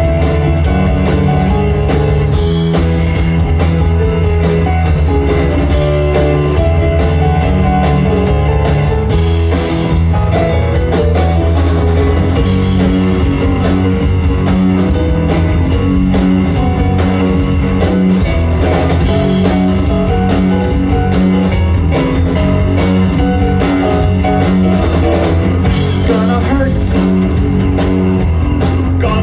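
Live rock band playing: electric guitar, electric bass, keyboard and drum kit together at a steady full volume.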